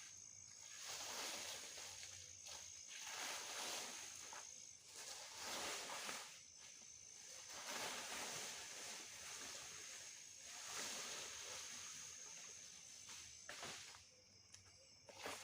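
A steady, high-pitched insect drone that breaks off briefly twice, over repeated swells of rustling, with a few sharp clicks near the end.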